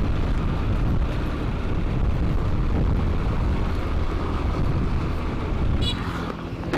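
Motor scooter ridden in traffic: engine running under a heavy, steady wind rumble on the microphone. Near the end there is a brief high-pitched sound and the overall noise drops.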